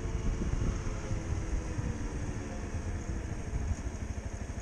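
Motorcycle engine running steadily while riding, heard from on board the bike, a low pulsing rumble with an even engine tone above it.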